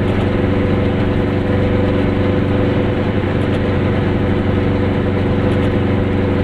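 Goggomobil's two-stroke twin-cylinder engine running at a steady cruise, heard from inside the cabin, with a steady engine note and road noise.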